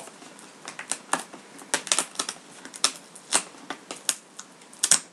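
Fingers picking and scratching at the edge and taped flap of a cardboard graphics-card box, making irregular sharp clicks and scrapes, with two louder snaps close together near the end.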